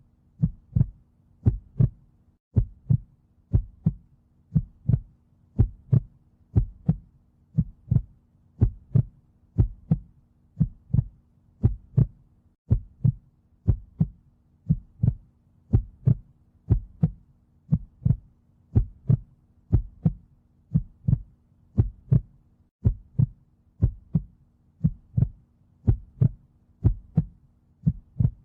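Heartbeat, a steady "lub-dub" of paired low thumps at about one beat a second, over a faint steady low hum.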